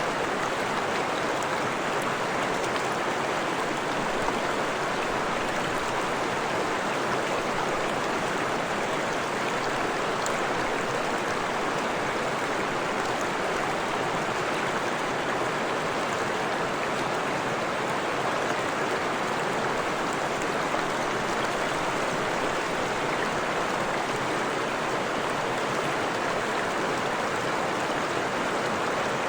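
Freshwater forest stream flowing and splashing steadily, a continuous rush of water with a few faint droplet ticks.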